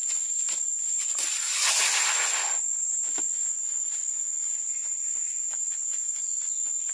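Insects droning with a steady high-pitched chirr, alongside scattered light knocks and a louder rush of noise lasting about a second, around two seconds in.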